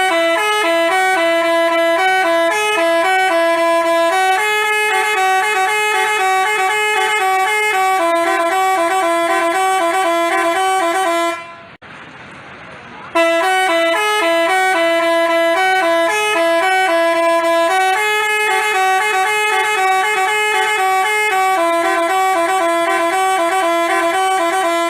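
Telolet 'basuri' musical bus horn playing a tune in stepped, sustained buzzy notes. It breaks off about halfway and then plays the same tune again.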